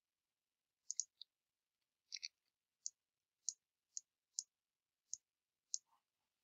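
Faint computer mouse clicks, about ten sharp clicks at irregular intervals, a few in quick pairs.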